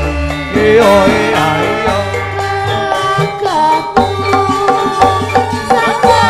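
Javanese gamelan ensemble playing in pelog: a kendang hand drum beats out a pattern under sustained, wavering melodic lines, with gliding vocal-like tones near the end.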